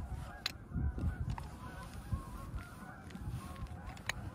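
Geese honking repeatedly, short calls one after another, with a few sharp crackles from a wood campfire and the rustle of a nylon stuff sack being handled.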